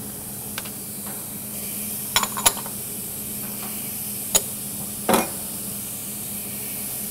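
Steady sizzling hiss of food dry-roasting in a hot stainless steel pot, with a few sharp metal clinks and knocks of a utensil against the pot, the loudest about five seconds in.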